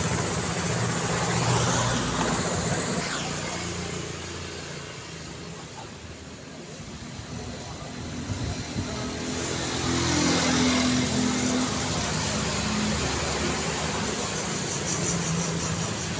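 Road traffic: cars driving past with tyre and engine noise, easing off for a few seconds mid-way and building again as more vehicles pass.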